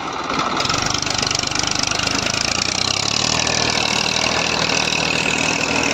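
Massey Ferguson 1035 DI tractor's three-cylinder diesel engine running steadily and loudly, its note settling into an even, clear drone about halfway through.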